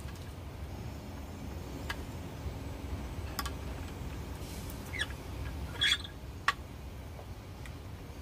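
A hand-levered steel tool working a kepayang (pangi) seed: a few sharp clicks, and a short high squeak about six seconds in, over a low steady rumble.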